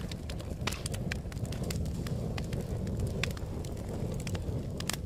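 A fire in a fireplace crackling: scattered, irregular pops and snaps over a low, steady rumble.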